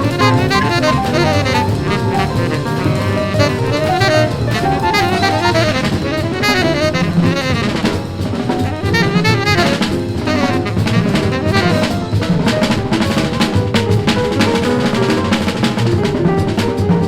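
1950s hard bop quintet played from a vinyl LP: a horn plays a fast run of notes over busy drum kit, piano and upright bass at a quick tempo. The drums grow more prominent near the end.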